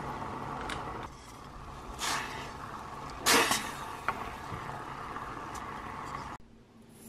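Orange peel strips being stirred in a pot of simmering sugar syrup: a steady hiss under a few knocks and scrapes of the spoon against the pot, the loudest a little over three seconds in. The sound cuts off suddenly near the end.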